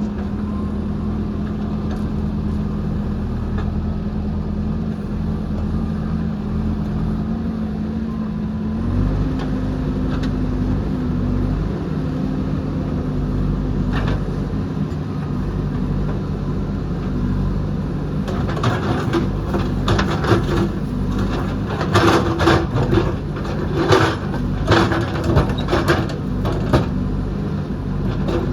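Diesel engine of a JCB backhoe loader running steadily, its revs stepping up about nine seconds in. In the last third, repeated crunching and knocking as the machine digs through rocky soil.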